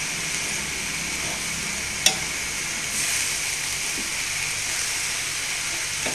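A stainless steel pan of chopped elephant yam stem and green gram sizzling steadily on the stove while a metal spoon stirs it. The spoon clinks sharply against the pan once, about two seconds in.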